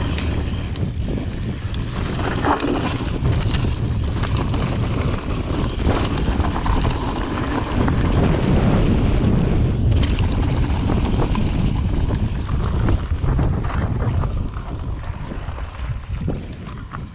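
Wind buffeting an action-camera microphone on a mountain bike riding a dirt and rocky trail, over the rumble of the tyres and the clatter of the bike, easing off over the last few seconds.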